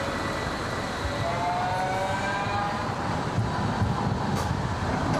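Low-floor electric tram passing on street track: its electric drive gives a rising whine in the first few seconds, then the rumble of wheels on rails grows as the cars pass close, with a few sharp clicks near the end.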